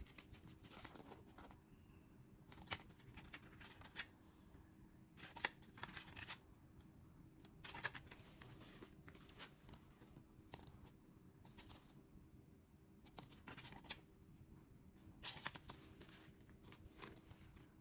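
Faint, scattered rustles and light clicks of CD single sleeves being handled, flipped over and set down among other CD packages.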